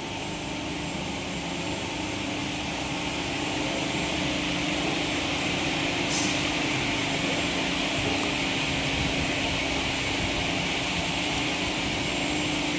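Steady hum and hiss of running machinery, a constant low tone under a band of hiss, growing slightly louder over the first few seconds. A brief high click comes about six seconds in.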